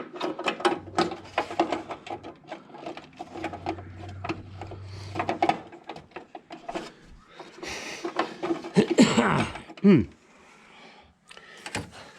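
Quick clicks and knocks of small metal fasteners and tools being handled under a car's dashboard, with a low hum for a few seconds. About eight seconds in comes a loud breathy exhale sliding down in pitch, like a groan of effort.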